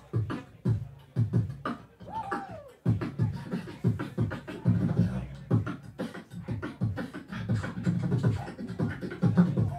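Beatboxing into a handheld microphone cupped over the mouth: a steady beat of bass kicks and sharp clicks, with a brief pitched vocal glide about two seconds in.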